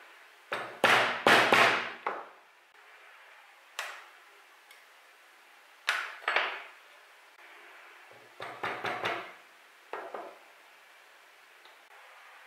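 Mallet striking a multi-prong leather pricking iron to punch stitching holes, a series of sharp knocks in short clusters with pauses between. The first cluster is the loudest.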